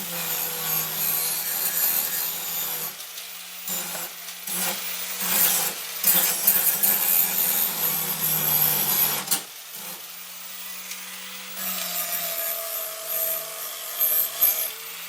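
Electric grinder running, its disc grinding steel down to bare metal to prepare it for welding. The rough grinding noise rides over a steady motor hum and eases off for a couple of seconds past the middle before starting again.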